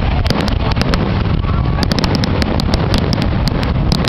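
Fireworks finale: shells bursting in quick succession, with many sharp crackling pops and bangs over a continuous low rumble. The pops grow denser near the end.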